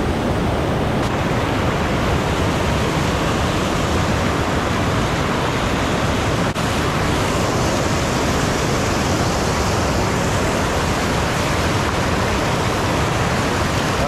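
Water rushing over a low dam spillway close by: a loud, steady wash of falling water.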